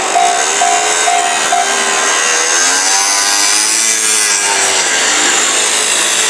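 A Japanese level-crossing warning bell dings about twice a second and stops about one and a half seconds in. A passing train runs loud over the rails throughout, its wheels squealing with a pitch that wavers up and down.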